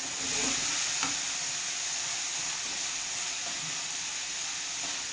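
Food sizzling in a frying pan over a gas burner as it is stirred with a wooden spoon, with a few light knocks of the spoon about a second in.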